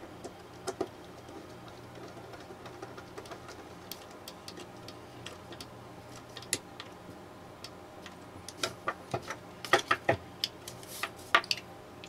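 Small metallic clicks and taps as the parts of a Leatherman Surge multitool are handled and its screws fastened during reassembly. The clicks are sparse at first, then a quick run of louder clicks comes near the end.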